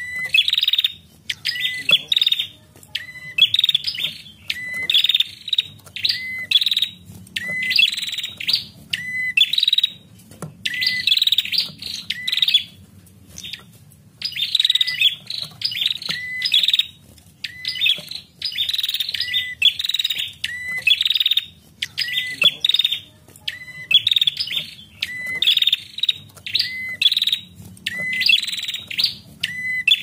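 Female prenjak calling without pause: short, buzzy chirping phrases repeated about once a second, each opening with a brief lower note before a higher rattle. It is the female call keepers use to provoke male prenjak into song.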